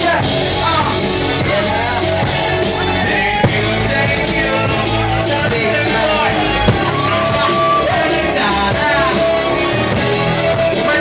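Loud live band music with a vocalist on a microphone over drums. Two brief sharp knocks stand out, about three and a half and nearly seven seconds in.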